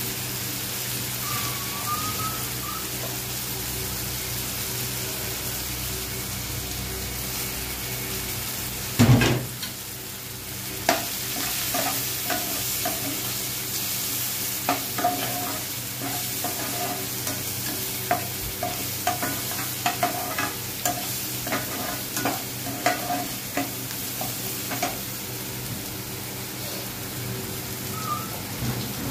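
Chopped onion and tomato sizzling in hot oil in a frying pan, with a loud knock about nine seconds in. From about eleven seconds a metal spatula stirs the mixture, clacking and scraping against the pan many times, and this eases off near the end.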